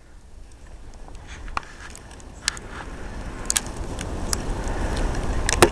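A car approaching, its noise growing steadily louder, with scattered light clicks and a sharper knock near the end.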